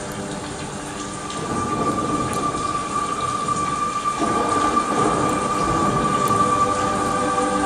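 Rumbling, thunder-like sound effect over steady held tones from the play's soundtrack, building a little from about a second in.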